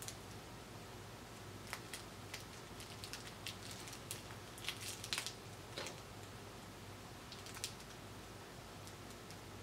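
Small clear plastic parts bag being handled and snipped open with small cutters: faint scattered clicks and crinkles, busiest from about two to six seconds in.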